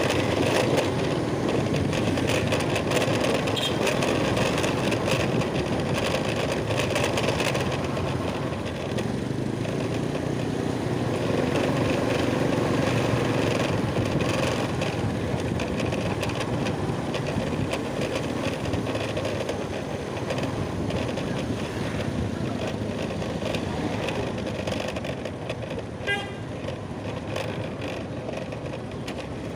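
Road traffic, with vehicles running steadily. A short pitched beep, like a horn, sounds near the end.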